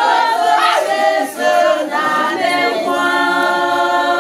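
Voices singing together without instruments, with a note held steady over the last second or so.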